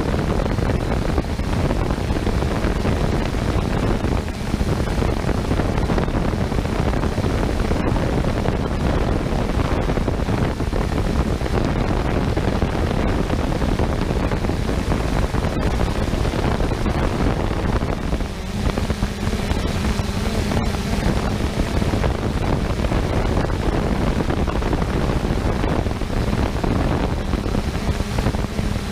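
Wind and propeller wash rushing over the GoPro microphone of a 3DR Solo quadcopter in flight. From about 18 seconds in, a steady hum from the drone's motors joins the rushing noise.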